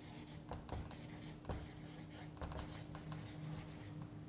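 Marker pen scratching across a whiteboard in short, faint strokes as a line of words is written, over a steady low hum.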